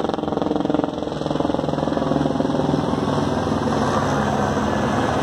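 A heavy engine drone with a fast, even beating pulse, growing slightly louder in the second half.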